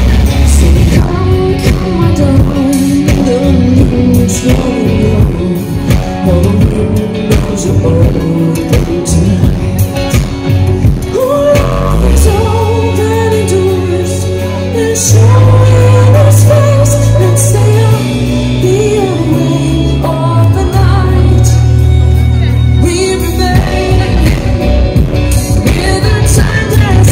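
Live pop music played loud through a concert PA: a woman sings the lead melody over a band, with a deep bass line that holds long notes from about halfway through.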